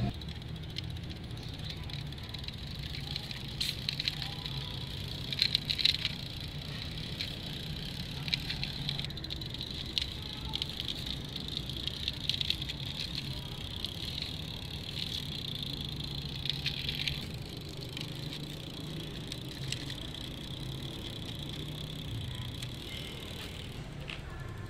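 Die-cast toy car's wheels rolling over rough concrete as it is pushed by hand: a steady gritty rolling sound with scattered rattling clicks and a few louder bursts.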